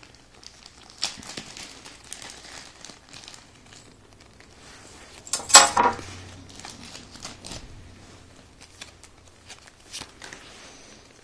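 Packaging being opened by hand: crinkling and rustling with scattered small clicks, and one loud rip or crackle about five and a half seconds in.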